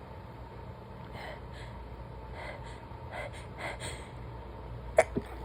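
A woman's quick, catching in-breaths building toward a sneeze. Near the end comes a short, sharp stifled sneeze, the loudest sound, with a smaller one right after it.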